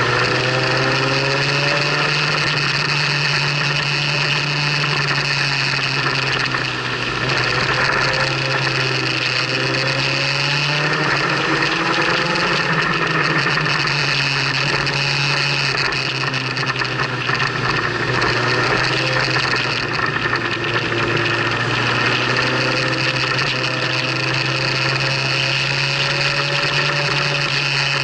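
Motorcycle engine running at road speed, its note rising and falling as the rider works the throttle through the bends, over a steady rush of wind and road noise.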